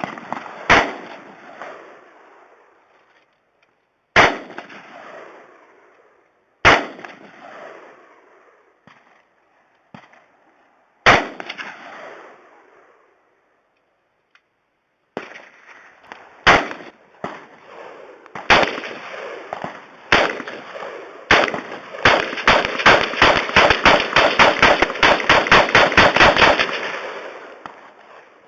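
Gunshots: single shots a few seconds apart, then a rapid string of about five shots a second for some four seconds near the end, each shot trailing off in reverberation.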